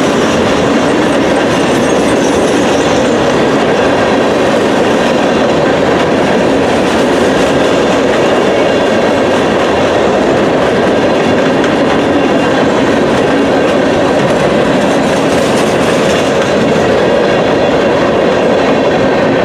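Empty ballast hopper cars of a freight train rolling past close by: a steady, loud rumble and clatter of steel wheels on rail, with a faint high whine above it.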